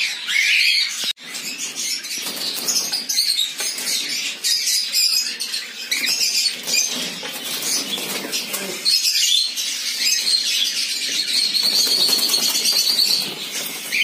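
Cockatiels calling in a breeding cage: a dense, continuous stream of rapid high chirps and calls, with a longer held call near the end.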